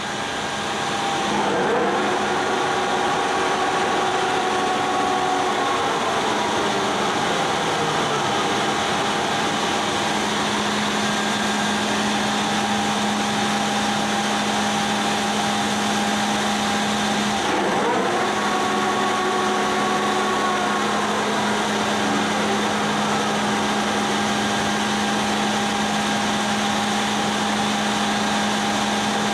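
Poreba TR135 heavy lathe running, its spindle turning slowly at 15 RPM: a steady hum from the electric drive motor and headstock gearbox. About two seconds in, and again near eighteen seconds, a set of tones comes in and then falls away in pitch.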